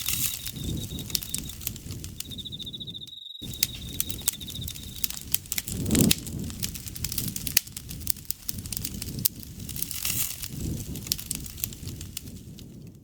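Bonfire crackling and popping with soft low rustling, and an insect chirping in a rapid pulsing trill over the first five seconds. There is a brief full gap in the sound a little over three seconds in.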